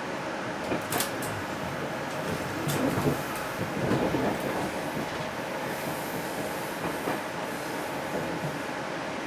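Chu-Kuang express passenger train running through a station without stopping: a steady rumble of coaches on the rails, with sharp wheel clacks over rail joints, loudest about three to four seconds in.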